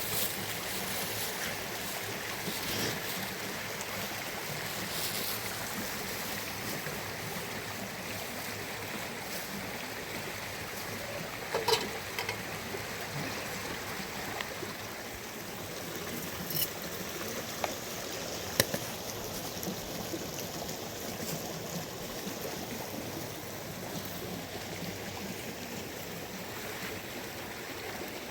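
Steady rushing of water, with a few sharp knocks standing out, the loudest about twelve seconds in.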